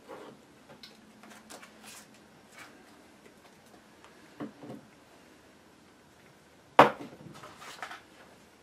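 Scattered light clicks and rustles of hands handling an electric unicycle pedal and tools on a workbench, with one sharp knock about three-quarters of the way through, the loudest sound.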